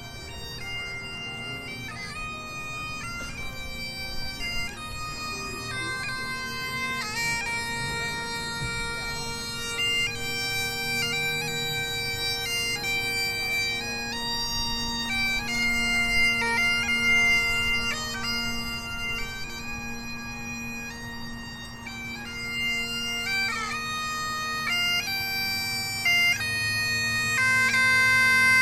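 Bagpipes playing a tune: a steady drone held under the chanter's melody, growing louder near the end.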